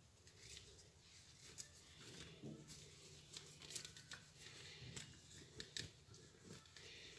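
Faint rustling of a soft cloth wiping a fishing spinning reel dry, with scattered light clicks as the reel is handled.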